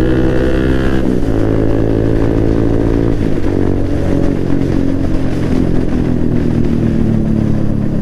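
Kawasaki Z800's inline-four engine running while riding. The engine note steps down about one second in and again about three seconds in, then holds lower and steady.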